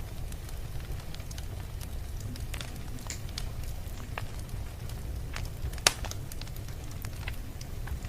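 Wood fire crackling, with scattered sharp pops and one louder pop about six seconds in, over a steady low rumble.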